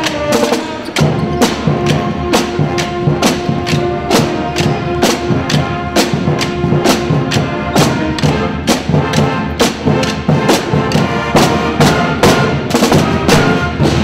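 School pep band playing: held horn and woodwind notes over a steady drum beat.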